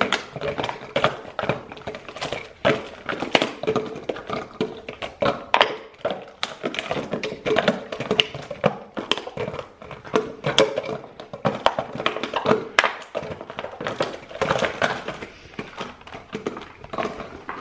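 Shiba Inu chewing and batting an empty plastic Gatorade bottle: irregular crinkling and clattering of the plastic.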